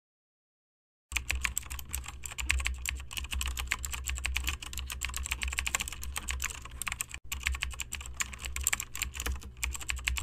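Fast typing on a computer keyboard, a dense run of keystroke clicks starting about a second in after dead silence.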